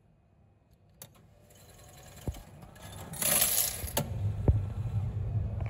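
Nippon Signal push-button ticket vending machine issuing a ticket and paying out change. Its mechanism whirs and clicks, with coins clattering loudest about three seconds in, then a low hum and a few more sharp clicks.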